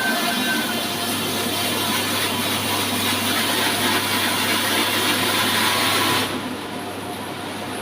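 Horizontal band sawmill running, a loud steady mix of hiss and low hum. About six seconds in, the high hissing part drops away abruptly and a lower, steadier machine hum remains.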